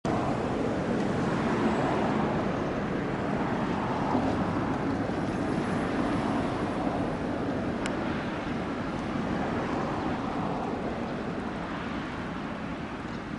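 Road traffic noise: a steady rumble of vehicles on a city street, growing a little quieter near the end, with one short click about halfway through.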